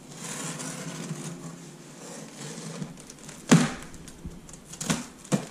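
Scissors cutting through packing tape on a cardboard box, with scraping and rustling of tape and cardboard and a few sharp snaps, the loudest about three and a half seconds in and two more near the end.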